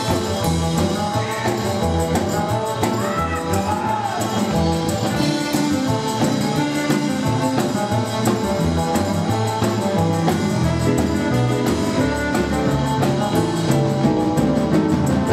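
Live rockabilly band playing, with saxophone, acoustic-electric guitar, upright bass and drum kit, the saxophone taking the lead over a steady beat.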